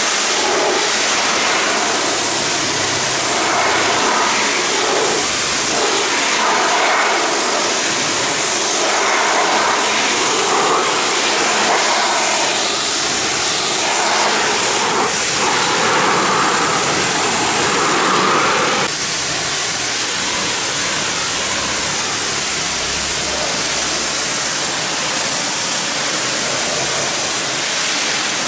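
Pressure washer spraying water, a steady loud hiss whose tone shifts as the jet moves; it drops slightly and changes character about two-thirds of the way through.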